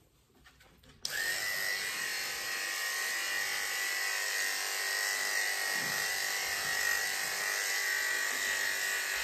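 Corded electric dog-grooming clippers with a number 10 blade running, shaving a dog's coat short. A steady high-pitched buzz starts about a second in and holds evenly.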